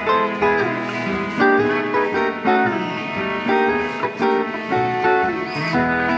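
Western swing band playing an instrumental break: electric archtop guitar, fiddles, steel guitar and upright bass, with sliding steel-guitar notes gliding between pitches.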